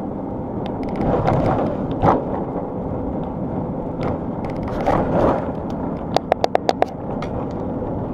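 Road noise inside a moving motorhome's cabin: a steady rumble with knocks and rattles as it goes over bumps. Near the end there is a quick run of about six sharp ticks.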